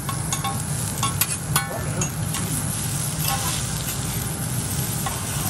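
Steel teppanyaki spatula and fork clicking and scraping on the hot griddle, with a quick run of taps in the first couple of seconds and a few more later, over the steady sizzle of seafood frying. A steady low hum runs underneath.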